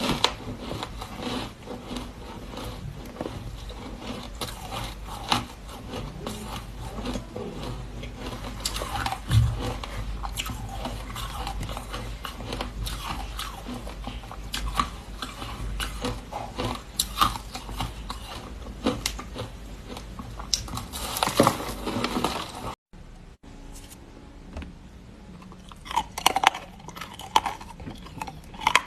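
A person biting and chewing frozen matcha ice close to the microphone: a constant run of hard, sharp crunches and cracks. A short break comes about three-quarters of the way through, after which the crunches are sparser.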